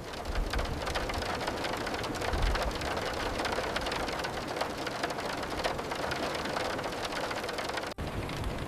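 Steady rain falling, a dense patter of drops, with a brief low rumble about two and a half seconds in. The sound cuts out for an instant near the end.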